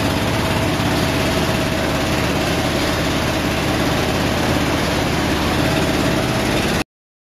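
Wire mesh PVC powder-coating machine running with a steady, loud mechanical drone and a faint steady tone over it. It cuts off abruptly near the end.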